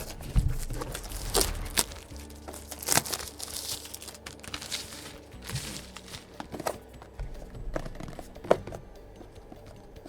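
Plastic shrink wrap crinkling and tearing as it is peeled off a product box: a run of sharp crackles and rips, one of the loudest near the end.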